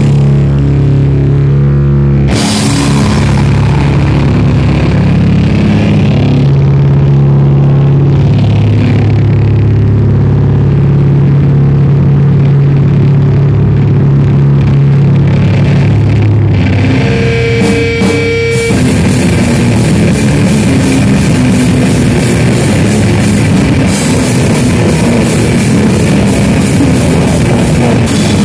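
Live rock band played very loud: distorted electric guitar holds long, heavy low notes, then about two-thirds of the way through the drums and crashing cymbals come in and the full band plays together.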